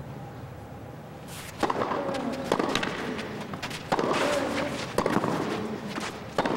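A tennis rally on a clay court: sharp racket-on-ball strikes about every second or second and a half, starting a second or so in, over a low background of arena sound.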